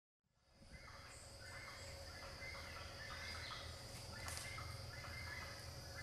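Faint outdoor ambience: birds calling again and again over a low rumble and a steady high thin tone, starting about half a second in.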